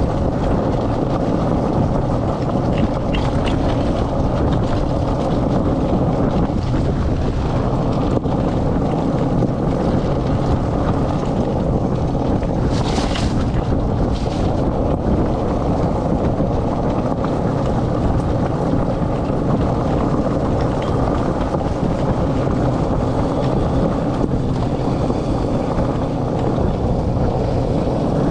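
Steady rumble of a dog-drawn four-wheeled training cart's knobby tyres rolling over a dirt trail, with wind buffeting the handlebar-mounted microphone. Two short hisses sound near the middle.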